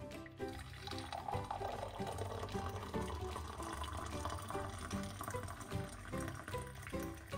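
Background music with short plucked or keyed notes over a hiss of running water, strongest in the first half.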